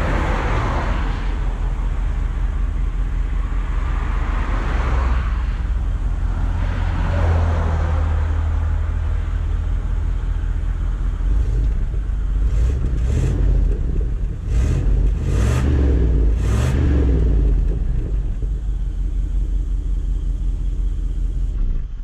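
Rolls-Royce Silver Spirit II's 6.75-litre V8 running at idle, heard at the exhaust tailpipe. It is steady, with a few light revs in the second half.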